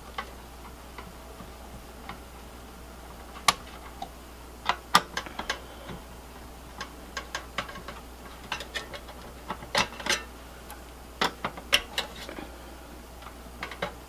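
Irregular sharp clicks and taps of a screwdriver and metal parts as the CPU heat sink is unscrewed and lifted off in a Dell T320 tower server, some in quick clusters.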